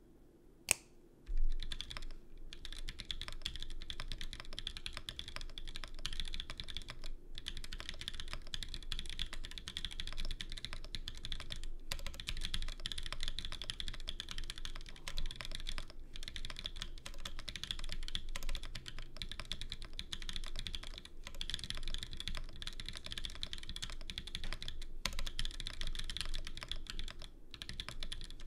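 Continuous typing on a mechanical keyboard with stock linear switches (Haimu x Geon Linear Black), an aluminium plate and TX stabilisers: a rapid, even clatter of keystrokes, broken by brief pauses every few seconds. A single sharp click and a thud come just before the typing starts.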